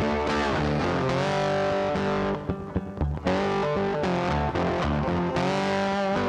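Background rock music led by distorted electric guitar, with a brief stop and a few sharp hits about two and a half seconds in before it picks up again.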